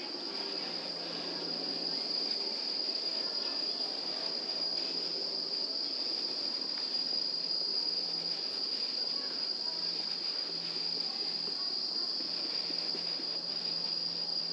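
Insects droning in one unbroken high-pitched tone, over a low background of outdoor noise and a faint hum that comes and goes.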